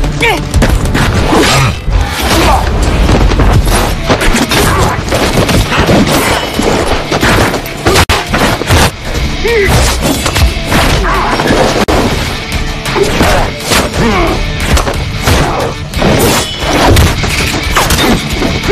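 Action film soundtrack: loud dramatic music mixed with fight sound effects, many sharp hits, thuds and crashes.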